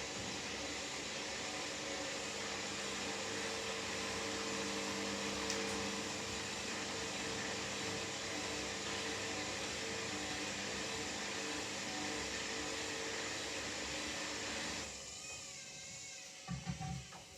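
Hoover Dynamic Next 7kg washing machine running: a steady rushing noise with a constant motor whine. It cuts off sharply about fifteen seconds in, followed by a few soft knocks.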